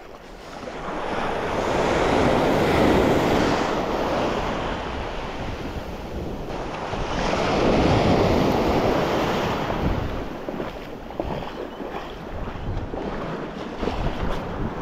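Sea waves breaking and washing up a beach, swelling twice about six seconds apart, with wind buffeting the microphone.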